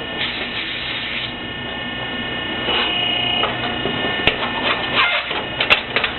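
Interlocking brick-making machine running: a steady mechanical whine with a few high tones, and a cluster of sharp clanks and knocks in the last two seconds.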